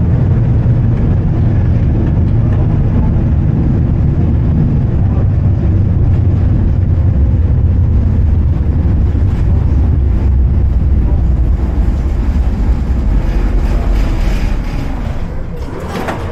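Tram running on its rails, a loud steady low rumble that drops away near the end, with brighter, higher sounds in the last second or so.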